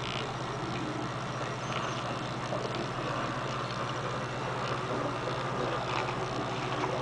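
Steady low electrical or mechanical hum with a constant hiss over it, and a few faint ticks.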